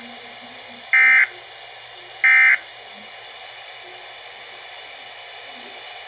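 Weather radio sending short bursts of buzzy SAME digital alert data: one ends as two more follow about a second apart, then steady radio hiss.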